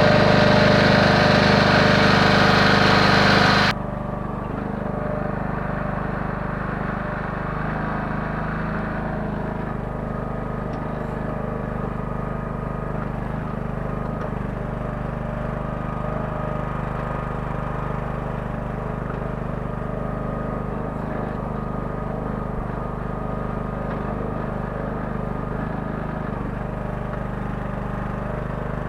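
The 9 hp engine of a Kellfri towable mini excavator running steadily. For the first few seconds a louder, brighter version of the sound is heard, which cuts off suddenly about four seconds in.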